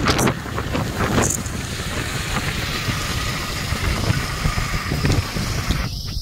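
Wind buffeting a phone's microphone on a moving motorcycle, over a steady low rumble of engine and road noise. The sound briefly cuts out twice near the end.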